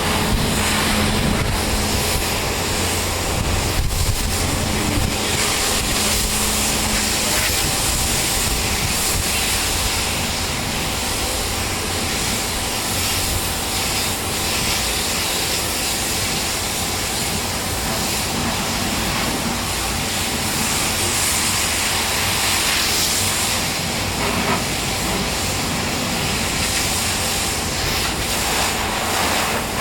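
Pressure washer spraying steadily: the hiss of the water jet over the low, steady hum of the machine's motor and pump.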